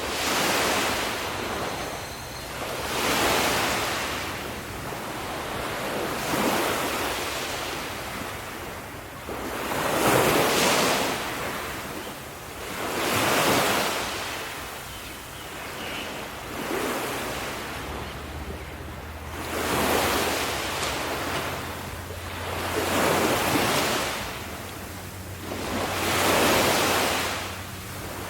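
Ocean waves breaking and washing onto the shore, one surge of surf about every three seconds, with a steady rush between them.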